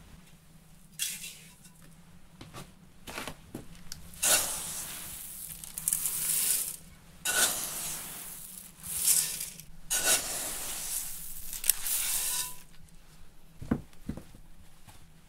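Metal scoop digging into a wooden bin of grain and pouring it into a metal bowl: four or so rushes of hissing, rattling grain with short gaps between them. A few light knocks come before, and a dull knock near the end.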